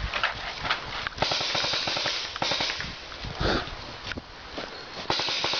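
Paintball markers firing, a scattered run of sharp pops, with several short bursts of hissing noise.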